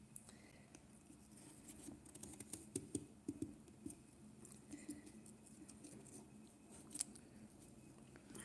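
Kitchen knife cutting through a pumpkin's rind: faint crisp crunching and clicking as the blade works along the cut, busiest a couple of seconds in, with one sharper click near the end.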